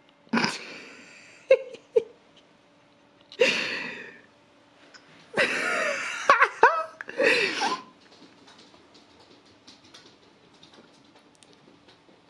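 People laughing in four short bursts on a phone video call.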